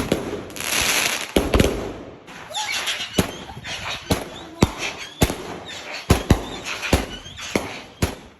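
A multi-shot consumer firework cake firing nonstop: a string of sharp bangs, about one or two a second, with hissing whooshes and faint whistles between the shots.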